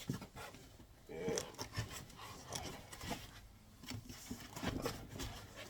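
Packing material being handled and pulled out of a cardboard box: irregular rubbing, scraping and small knocks.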